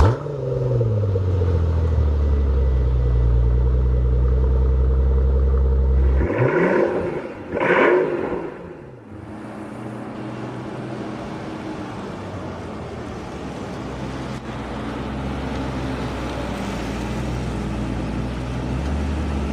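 Mercedes-Benz S65 AMG's twin-turbo V12 catching, its revs falling back from the start-up flare to a steady idle. It is blipped twice about six and a half and eight seconds in, then settles back to idle.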